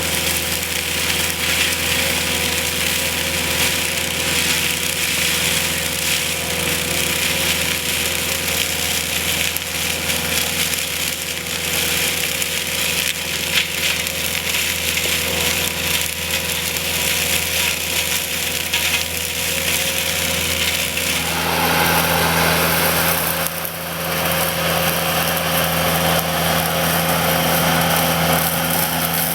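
Skid steer engine running steadily while a hydraulic 36-inch flail mower on a side boom arm spins and chews through vegetation with a dense crackling hiss. The machine's pitch shifts about twenty-one seconds in.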